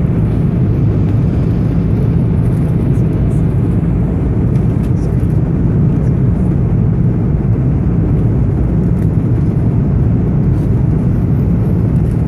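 Airliner cabin noise in flight: a loud, steady, low rush of engines and airflow, with a few faint clicks now and then.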